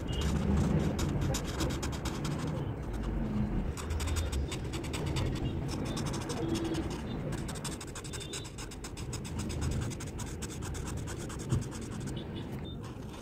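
Felt-tip marker tip scratching back and forth across paper in quick, short colouring strokes, over a low background rumble.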